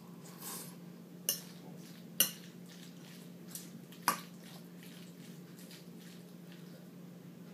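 Metal fork clinking and scraping against a ceramic bowl while eating macaroni and cheese: a soft scrape, then three sharp clinks about a second apart, over a low steady hum.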